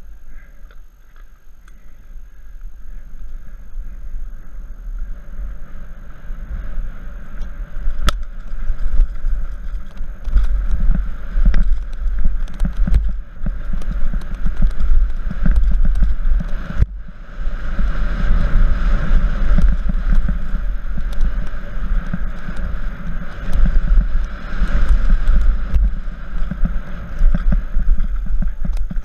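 Mountain bike descending a downhill dirt trail at speed: a heavy low rumble of wind and tyres on the dirt, with the bike rattling over bumps. It grows louder over the first ten seconds as speed builds, and cuts out sharply for an instant about halfway through.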